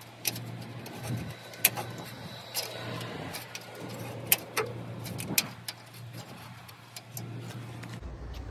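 Scattered sharp clicks and clinks, about a dozen, from the springs and small hardware of a Ford F-150 tailgate Flex Step being worked out by hand, over a steady low hum.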